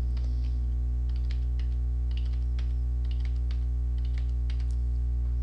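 Computer keyboard keys tapped in short irregular runs as numbers are typed in, over a loud, steady electrical mains hum.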